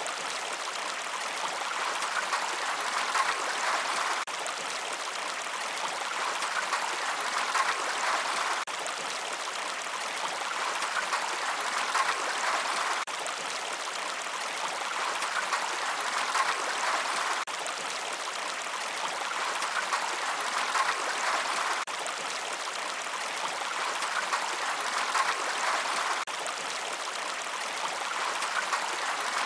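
Steady rushing of running water, like a stream, without music. It swells and restarts about every four and a half seconds, as a looped recording does.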